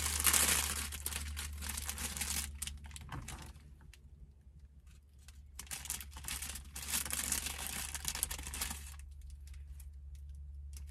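Crinkling and rustling of a clear plastic cellophane package being handled, in two stretches of small crackles with a quiet pause between, over a steady low hum.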